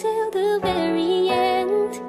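Pop music playing: a gliding, held melody over sustained lower notes.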